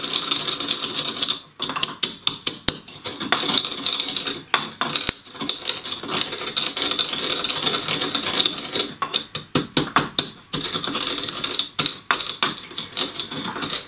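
Whole coriander seeds being pounded and ground with a pestle in a mortar: a steady run of rapid knocks and gritty crunching scrapes, with brief pauses about a second and a half in and again near ten seconds. The seeds are crushed only coarsely, about half-ground, for a pakora batter.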